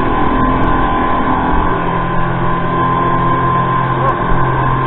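Speedboat's outboard engine running steadily at speed, a constant drone over the rush of churning wake water.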